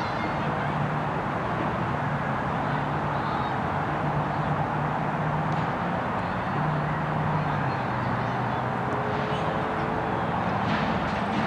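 Steady distant traffic noise: a continuous hum and rush with no distinct events standing out.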